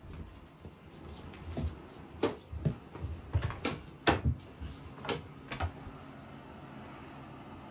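A cat pouncing and scrambling after a toy: a run of sharp knocks and thumps from its leaps and landings over a few seconds, then only a faint steady background.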